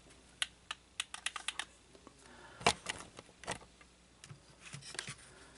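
Irregular light clicks and taps of plastic model parts being handled, with a quick run of clicks about a second in and a single louder knock near the middle.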